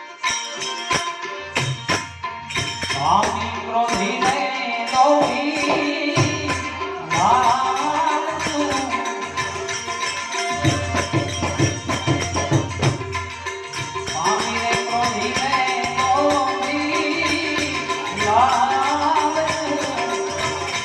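Gujarati santvani devotional folk music: wavy melodic phrases over a steady beat of hand drums and jingling percussion.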